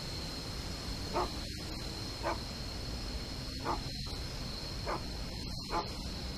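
Five short animal calls, spaced about a second apart, over steady background noise with a constant high-pitched whine.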